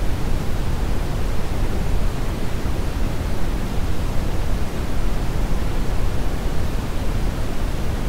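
Pure brown noise test signal, a steady, even rushing noise with most of its energy in the lows, its level falling 6 dB per octave toward the highs. It is calibrated for headphone measurements and tests.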